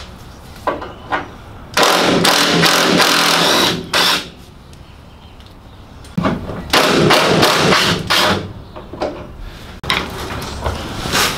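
Metal tool work on a Morris Minor's front suspension and hub: two loud bursts of banging and rattling, each about two seconds long, with shorter knocks around them.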